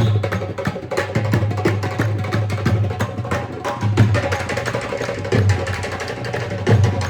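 Music carried by drums struck in a fast, steady rhythm, with deep drum beats under quick lighter strikes.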